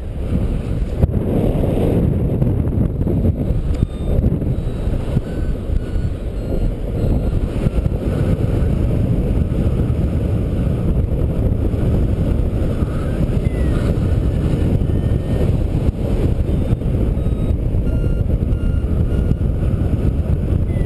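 Airflow rushing over the camera microphone of a paraglider in flight, a loud steady low rumble. Faint short beeps, typical of a flight variometer, sound now and then at changing pitches.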